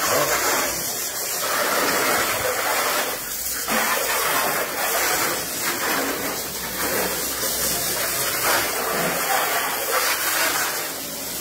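Garden hose fitted with a clamped-on pen cap as a nozzle, shooting a narrow high-pressure jet of water against a car's bodywork: a continuous spray noise.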